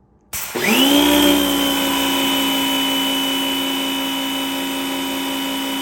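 Portland electric pressure washer switching on: its motor and pump whine rise to speed in about half a second, then run steadily.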